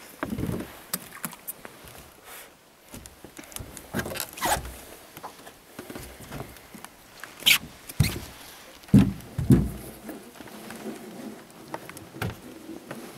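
Fishing line hauled in by hand over the side of a boat: irregular rustling and scraping, broken by a few sharp knocks against the hull, the loudest about two-thirds of the way through.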